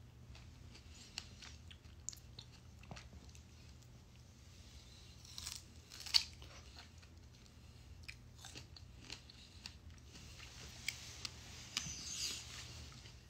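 A person biting and chewing crisp food close to the microphone, with scattered crunching clicks. The loudest bite comes about six seconds in, and another run of crunches follows near the end.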